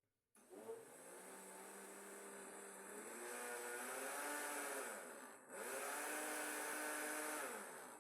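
Kitchen blender running, mixing a liquid bread batter of milk, eggs, oil and sugar. Its motor hum rises a little in pitch about three seconds in, cuts out for a moment partway through, then runs again and stops near the end.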